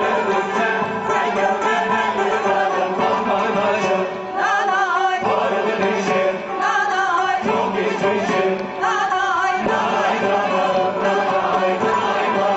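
Mixed choir of men and women singing a Turkish art-music song to instrumental accompaniment, with a wavering vibrato on several held notes in the middle.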